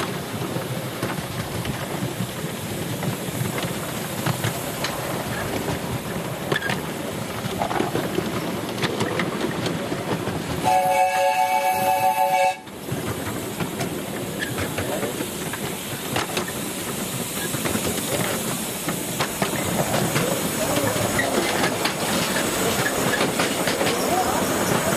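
Carriages of a 7¼-inch gauge miniature steam railway rolling and clicking over the rail joints, heard from on board. About eleven seconds in, the locomotive's whistle sounds for about two seconds as a chord of several notes together, the loudest sound here.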